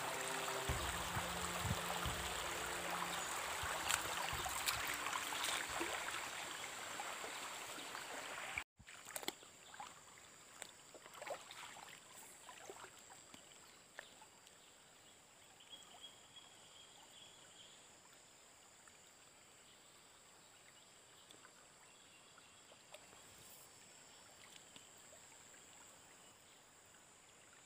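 Water running in a shallow stream. For the first several seconds it is louder, with music of held notes over it. About nine seconds in, it cuts abruptly to a much fainter, steady stream sound broken by a few light clicks.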